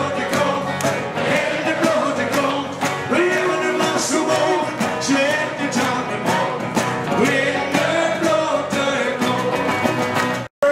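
A small band playing an upbeat country-style song live on two resonator guitars and an electric bass, with singing and a steady strummed rhythm. The music cuts off suddenly near the end.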